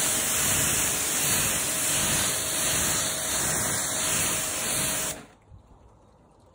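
Water jet spraying onto a car's painted panels: a steady, loud hiss that cuts off suddenly about five seconds in. It leaves faint dripping and trickling as water runs off the paint.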